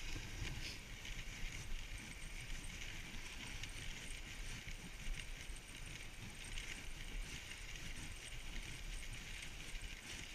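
Dog sled moving along a snow trail: the runners make a steady scraping hiss over the snow, with a constant low rumble.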